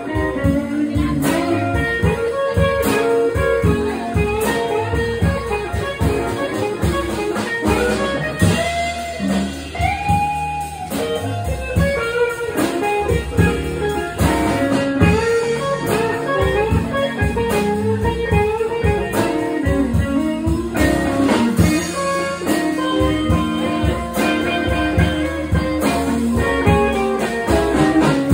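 Live blues band playing, led by guitars, with bent notes.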